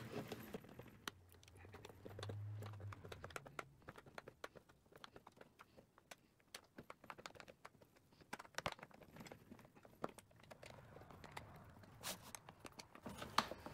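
Tear strip of a sealed steel ammunition spam can being peeled back with its key opener: a run of faint, irregular small metal clicks and crinkles as the strip winds around a corner.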